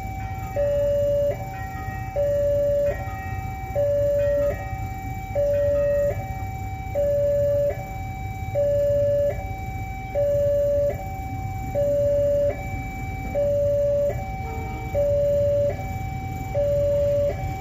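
Level-crossing warning alarm sounding its two-tone signal: a higher and a lower tone alternate steadily, switching a little more than once a second, the lower tone louder. It signals that the crossing is closed for an approaching train. A low, even rumble runs underneath.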